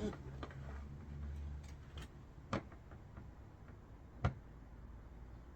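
Three sharp clicks and taps, spaced a second or two apart, from parts being handled during a bolt-on fitting, over a low steady hum.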